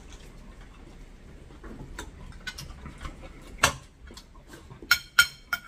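Tableware clinking during a meal: scattered light clicks and taps, a sharp clink about three and a half seconds in, then three bright ringing clinks near the end as a metal spoon knocks against the dishes.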